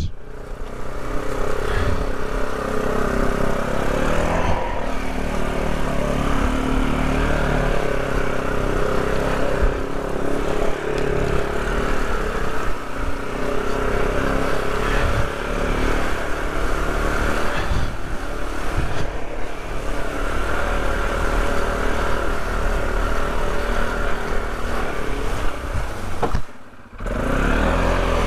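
Polaris off-road vehicle's engine running steadily under way, its pitch shifting a little with the throttle. Near the end the sound briefly drops away, then returns.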